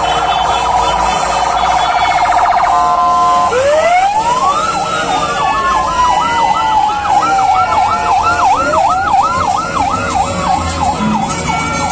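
Electronic emergency-vehicle sirens from passing vehicles: a fast warble at first, then about three and a half seconds in one siren rises into a wail while another cycles in a quick yelp of roughly three sweeps a second, with long falling and rising wails toward the end.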